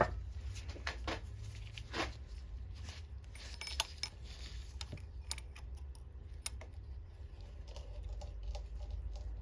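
Scattered light metallic clicks and ticks as a steel punch is set against the tang of a Helicoil thread insert in an aluminium transmission case, getting ready to knock the tang off, over a low steady hum.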